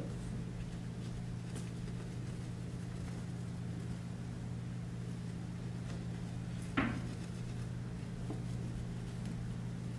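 Steady low electrical hum from the sound system, with one short knock about seven seconds in.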